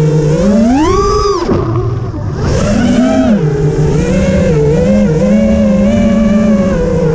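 A motor running close by with a steady pitch that rises sharply about a second in and falls back, rises briefly again about three seconds in, then holds roughly steady with small rises and falls.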